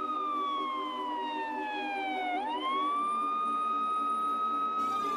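Siren sound effect in a DJ mix. A single tone falls slowly for about two seconds, jumps back up and holds, then starts falling again near the end, over a quiet repeating musical pattern.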